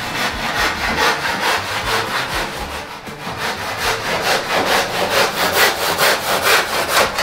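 Hand saw cutting cornice coving in a mitre box: quick, even back-and-forth strokes, about five a second.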